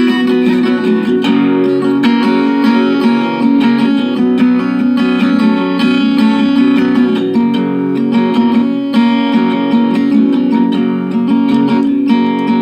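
Acoustic guitar strumming an instrumental passage of a song.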